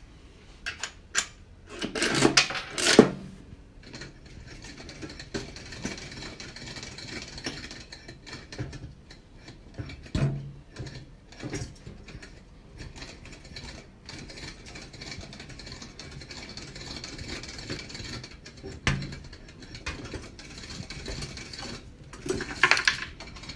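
Carnival candy-digger machine's crane mechanism running with a steady mechanical whir of gears as the Tonka dragline swings its bucket. Loud knocking and clatter come about two seconds in and again near the end.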